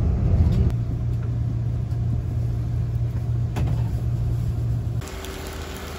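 Steady low rumble and hum of a passenger train, heard from inside the carriage, with a single sharp click about three and a half seconds in. Near the end it cuts abruptly to a quieter, hissier ambience.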